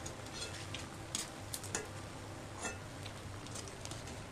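Batter-coated cutlets deep-frying in oil in an iron wok, a steady sizzle, with a few light irregular clicks as a perforated steel slotted spoon taps against the pan while moving them.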